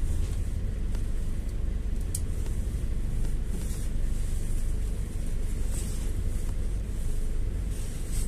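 Steady low rumble of a GAZ-A68R52 City minibus on the move, heard from inside the passenger cabin. There is a sharp click about two seconds in and a few brief hissing sounds after it.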